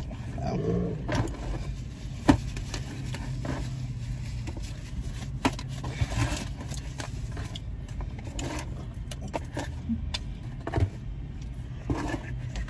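Clear plastic clamshell food container being handled and pried open: scattered sharp plastic clicks and scrapes, the loudest about two seconds in, over a steady low hum inside a car's cabin.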